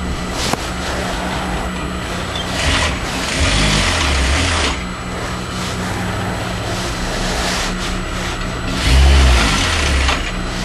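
Electric sewing machine running and stitching through fabric, with a steady hum and two louder runs, about three seconds in and again near the end.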